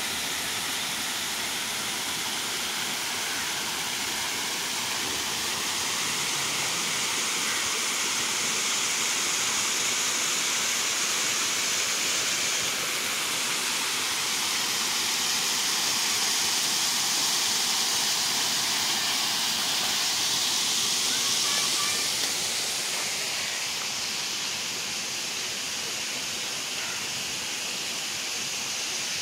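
Small waterfall spilling over a stone weir into a rocky stream: a steady rush of falling water that swells and eases slightly.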